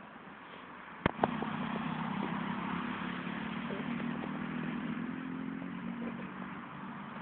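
Two sharp clicks about a second in, then a steady motor-like hum with hiss over it that runs for several seconds and eases near the end.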